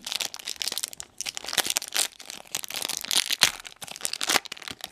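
Waxed-paper wrapper of a vintage baseball card pack crinkling and tearing as fingers peel it open, in irregular crackling bursts.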